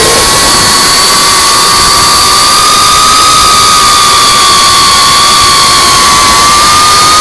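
FPV quadcopter's brushless motors and propellers whining steadily in flight, heard from the drone's own onboard camera, the pitch rising slightly near the end.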